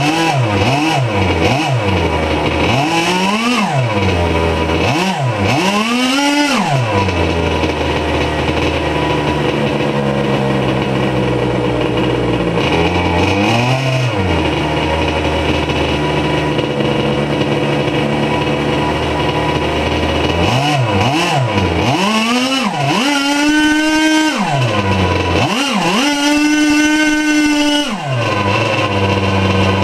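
K&B 72 glow engine running in a Byro-Jet ducted fan unit. It revs up and down in quick throttle blips in the first few seconds, runs steadier through the middle, blips again past the middle, and is held at high revs for a few seconds near the end.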